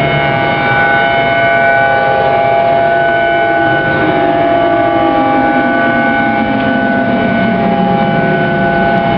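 Civil defense sirens sounding a steady, unbroken tone, the public warning for a possible tsunami. A lower tone slides slowly downward from about a third of the way in.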